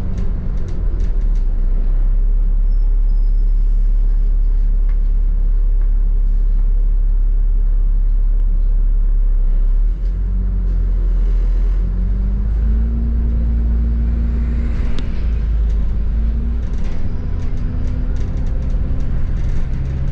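Double-decker bus heard from on board: a steady low engine and road rumble with light rattles. A little after halfway the engine note steps up in pitch as the bus pulls away and gathers speed.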